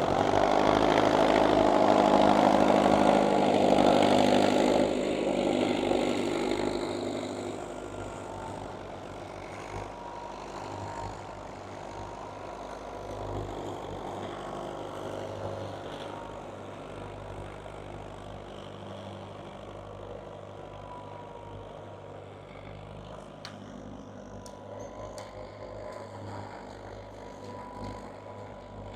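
Doe Triple D tandem tractor's twin Fordson diesel engines running under load while ploughing. Loud for the first five seconds or so, then fading to a steady, lower level.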